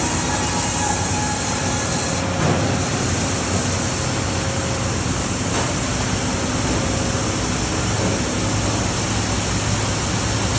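Steady engine-driven machinery noise: a continuous rumble under a broad hiss, with no clear changes.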